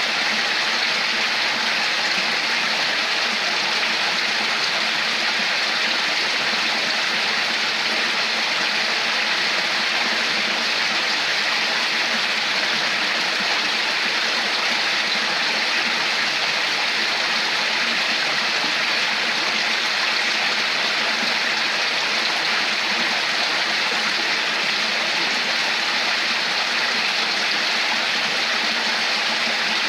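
Water flowing steadily over rocks in a stream, an even, unbroken rush and babble.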